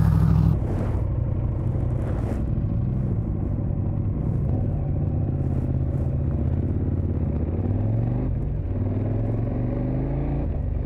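KTM 1290 Super Adventure's V-twin engine running under way, its pitch rising and falling a little with the throttle.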